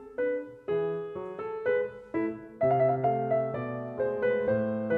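Background piano music: a melody of single notes, each struck and fading, with lower notes filling in about halfway through.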